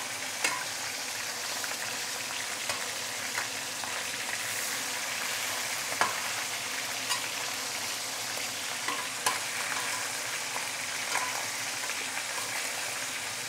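Whole mackerel frying in hot oil in a wok: a steady sizzle and crackle, with occasional sharp pops and clicks spread through it.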